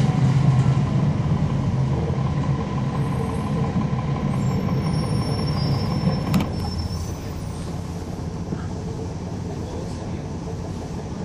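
Cummins ISL9 diesel engine of a NABI 40-SFW transit bus running, heard from on board. The low engine hum gets quieter over the first seven seconds or so as the engine eases off, with one sharp click about six seconds in.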